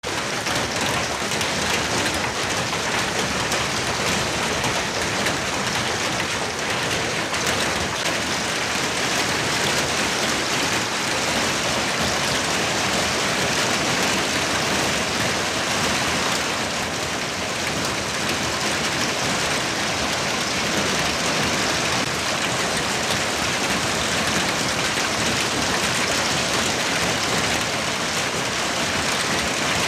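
Heavy wind-driven hail, baseball-size and larger, mixed with rain, pelting pavement and parked vehicles. It makes a dense, steady clatter and hiss of countless impacts.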